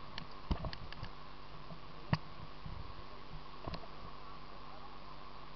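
Steady rushing of a mountain river, with a few sharp clicks and knocks, the loudest about two seconds in.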